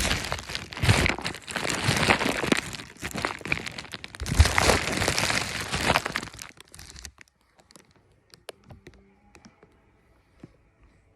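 Loud crinkling and rustling close to the microphone, full of small crackles, stopping about six and a half seconds in; after that only a few faint clicks and taps.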